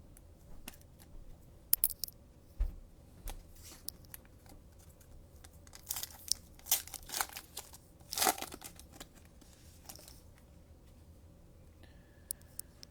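Trading cards and their plastic pack wrapper being handled: scattered crinkling and rustling with light clicks, busiest in the middle.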